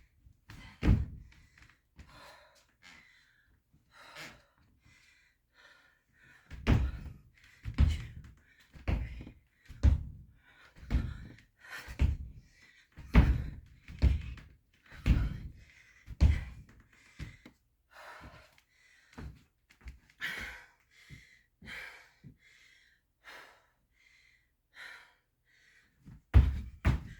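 Feet landing on a hard indoor floor during plyometric jumps (skater jumps, line hops or split squat jumps), a dull thud about once a second, lighter for a stretch in the middle and heavier again near the end.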